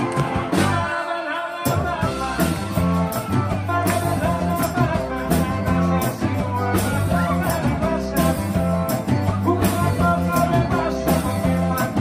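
A live rock-and-roll band playing, with drums, guitars and a male lead vocal. The low end is missing for the first second and a half, then the full band comes in with a steady beat.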